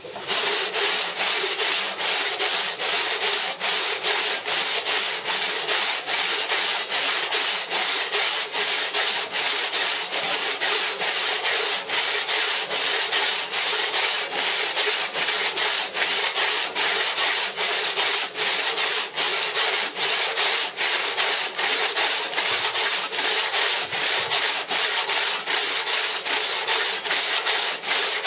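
Large hand saw rasping through a block of Bath stone, a soft limestone, in steady back-and-forth strokes about two a second, cutting a saw kerf down to depth.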